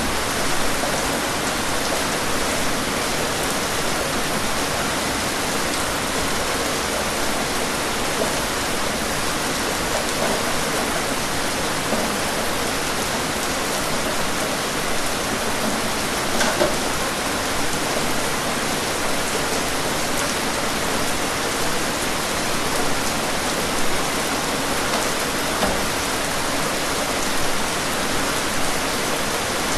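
Steady rain falling, an even wash of sound with a few louder drop hits here and there.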